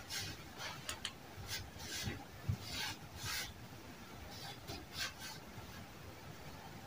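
Faint rustling and rubbing of denim fabric being folded and handled, a string of short irregular scratchy strokes.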